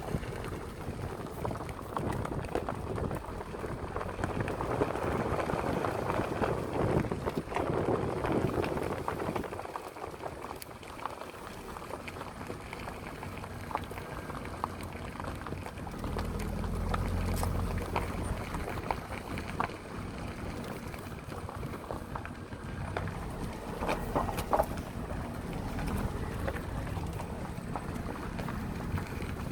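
Vehicle driving along a road: steady engine and tyre noise, with the low engine hum swelling for a few seconds about halfway through and again near the end.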